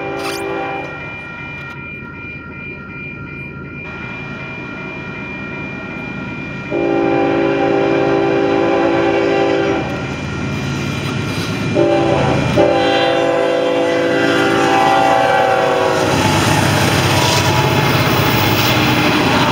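Diesel freight locomotive horn sounding the grade-crossing signal: a blast ends about a second in, then a long blast, a short one and a final long one. A grade-crossing bell rings steadily throughout, and in the last few seconds the lead locomotives and the train pass close by, loud with engine and wheel noise.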